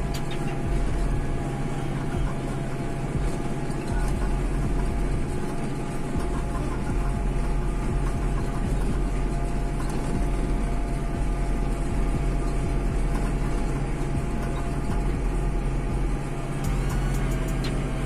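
Hattat 398 tractor's diesel engine running steadily under load as it pulls a mounted moldboard plough through the soil, heard from the cab.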